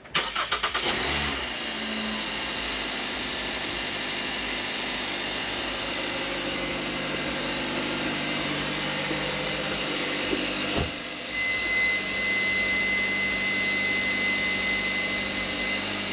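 2020 Hyundai Tucson's engine cranking and catching, with a brief flare of revs, then idling steadily. A single knock about eleven seconds in, after which a thin steady high tone runs alongside the idle.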